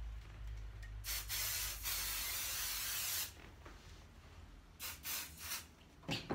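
Aerosol can of quilt basting spray hissing: a short spritz about a second in, then a steady spray for about two seconds, and a few quick spritzes later. A short scuff near the end.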